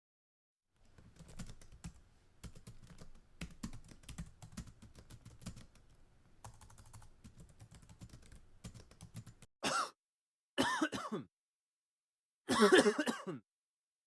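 Faint keyboard typing, irregular clicks for about nine seconds, followed by three loud coughs, the last a longer bout.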